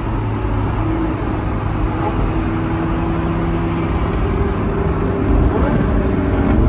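McLaren twin-turbo V8 and tyre and road noise heard from inside the cabin while cruising at a steady speed, the engine note rising slightly near the end.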